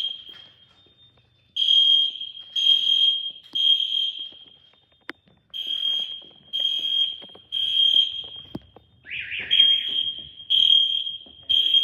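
Fire alarm sounding a high beeping tone in the temporal-three pattern: three short beeps, a pause, then three again, the standard evacuation signal. A brief lower sound cuts in just after the third group.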